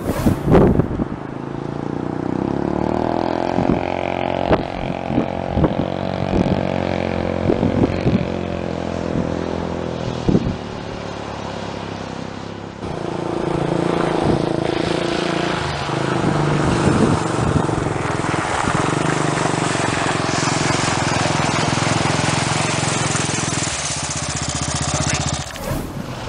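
A small vehicle's engine running steadily, with a few knocks in the first half. About halfway through, the sound cuts to a different engine running under more wind and rushing noise.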